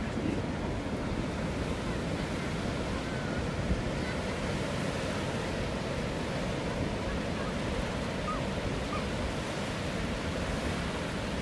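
Sea waves washing in a steady rush, with wind rumbling on the microphone.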